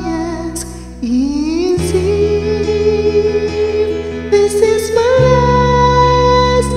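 A man singing a slow ballad over a karaoke backing track, holding long notes, with a scoop up in pitch about a second in.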